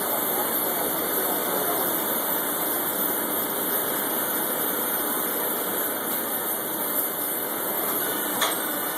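Gas torch hissing steadily as it heats a boiler rivet toward white heat, with one short click near the end.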